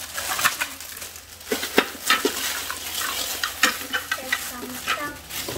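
Plastic packaging and toy parts being handled: steady crinkling with scattered sharp clicks and knocks.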